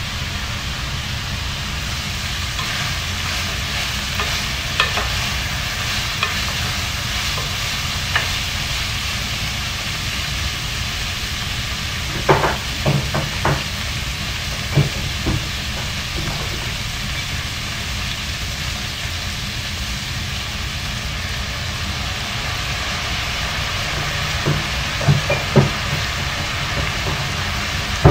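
Chicken feet sizzling in a pot while a wooden spoon stirs them. Clusters of sharp knocks from the spoon striking the pot come about halfway through and again near the end.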